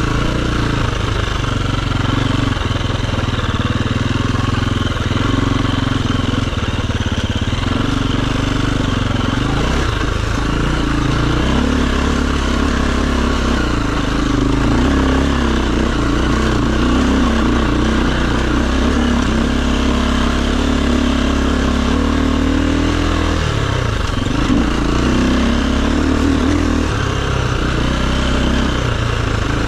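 Dirt bike engine running continuously, its pitch stepping up and down again and again as the throttle opens and closes.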